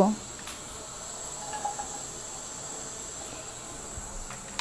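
Quiet room tone: a faint steady hiss with a thin high whine, and a couple of faint soft taps.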